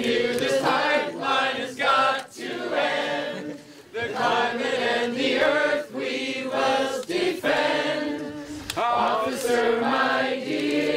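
A group of voices singing a protest song together in phrases, with brief pauses between lines.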